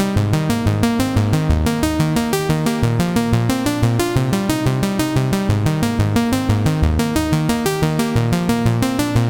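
Electronic music: synthesizer lines over a fast, steady drum-machine beat.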